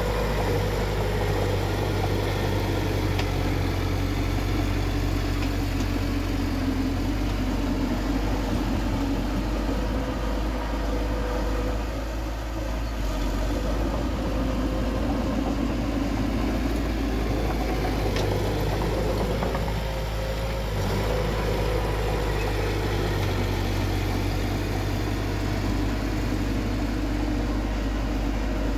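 Bulldozer's diesel engine running steadily as it works, a constant low engine hum with slight dips in level about twelve and twenty seconds in.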